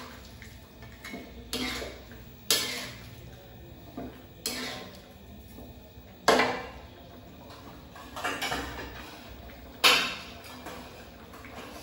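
Metal spatula knocking and scraping against a steel wok during stirring: about six sharp clanks a second or two apart, each ringing briefly.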